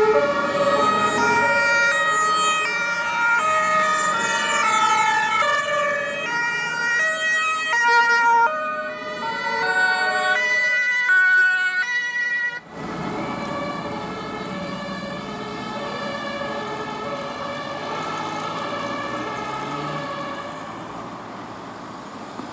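Several emergency vehicles' two-tone sirens sounding at once, each stepping back and forth between two pitches so that the tones overlap. About 13 seconds in the sound drops off abruptly, and the sirens go on more faintly over the noise of passing vehicles.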